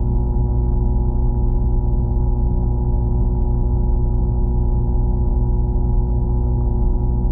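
A steady low drone of several held tones over a rumble, muffled, with nothing above the low middle range. It does not change.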